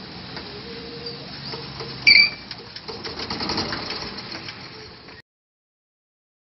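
Golf cart running and rolling over grass, a steady mechanical noise with faint ticks and rattles and one brief high squeak about two seconds in. The sound cuts off suddenly about five seconds in.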